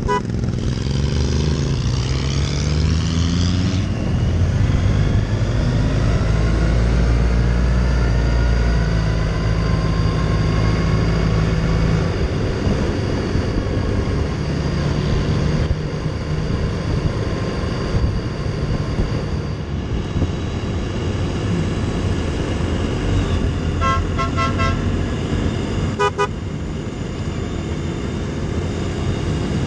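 Motorcycle engine heard from the rider's seat, rising in pitch as it accelerates away from a roundabout, then running steadily at cruising speed. Near the end, two quick sets of short horn beeps about two seconds apart.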